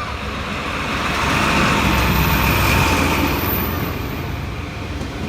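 A vehicle passing close by, its noise swelling to a peak about two to three seconds in and then fading.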